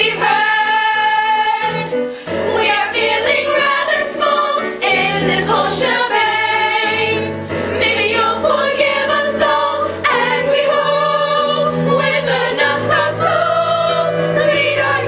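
Stage musical number: several voices singing together over instrumental accompaniment with held bass notes, continuous and loud.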